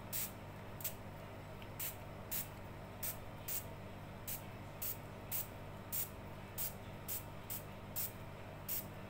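Small pump spray bottle of wood stain spritzing onto a balsa-wood gate: about fifteen short, quick sprays, roughly two a second, over a faint steady hum.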